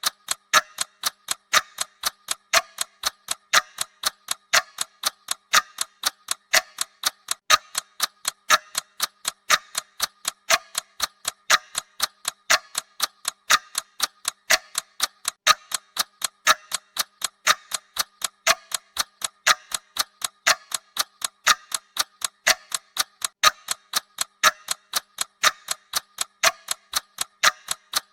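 Clock-style tick-tock sound effect of a countdown timer, sharp, even ticks at about two a second.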